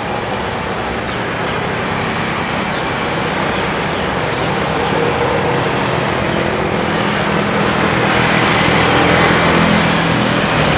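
Jet airliner engines, a steady roar that slowly grows louder as the aircraft approaches.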